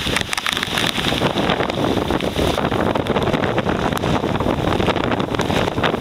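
Typhoon-force wind gusting hard against the microphone: a loud, continuous rush with many small crackles of buffeting.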